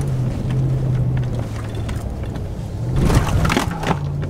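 Ram Rebel pickup's engine pulling under throttle on a steep sand climb, heard from inside the cab as a steady low drone. A short cluster of knocks and rattles about three seconds in as the truck jolts over the ground.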